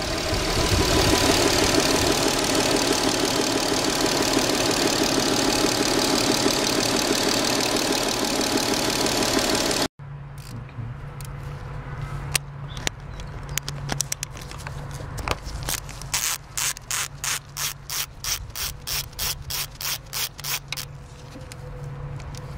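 A loud, dense, steady noise for about the first ten seconds, cut off abruptly. Then a ratchet wrench clicking as it unscrews the bolt holding the VVT oil control solenoid valve: scattered clicks at first, then an even run of about two to three clicks a second, over a low steady hum.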